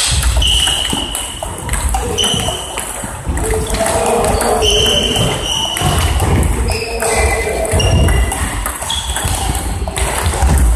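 Table tennis multiball drill: plastic balls clicking in quick succession as they are fed and struck off rubber paddles and bounce on the table. Short high-pitched squeaks come in now and then.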